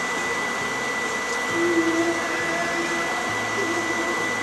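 Steady mechanical hum and hiss of a fishing boat's engine running, with a thin high whine throughout and a low humming tone rising over it about halfway through.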